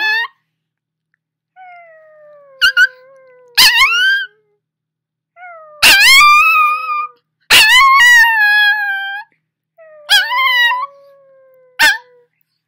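Puppy howling in several squeaky, high-pitched calls that rise sharply and then waver or fall, the two loudest around the middle. The voice sounds squeaky and weird, which the owner puts down to his having just woken up.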